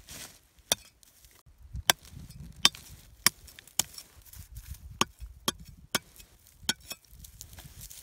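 Machete blade chopping into hard, dry, cracked rice-field soil: about nine sharp strikes at uneven intervals, roughly one every half second to a second, as a hole is dug out to find snails buried in the dried mud.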